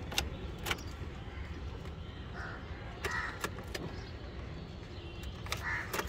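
Crows cawing a few times in short single calls, with a few sharp clicks from the car's ignition key being turned, over a low steady hum.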